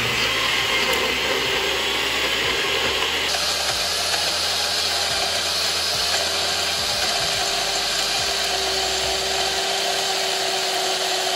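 Nutribullet personal blender motor running steadily, blending onion, garlic, peppers, herbs and olive oil into a paste: the load that stalled at first is now turning over and grinding smooth. The sound brightens a little over three seconds in and carries a steady tone through the second half.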